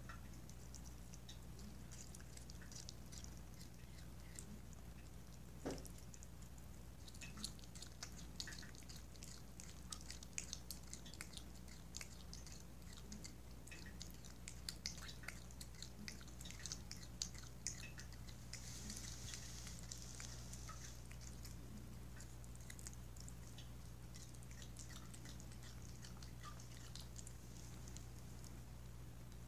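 Tabby cat chewing chicken: faint, irregular wet smacks and clicks of jaws and tongue, many small ones in quick succession.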